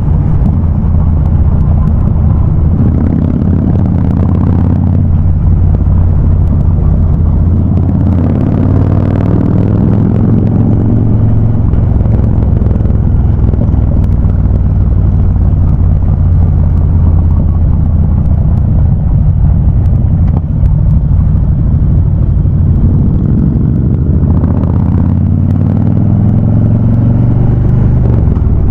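Harley-Davidson Ultra Classic V-twin engines running through Vance & Hines High Output exhausts, a deep steady rumble on the move, with the throttle opening up a few times into brief rising swells.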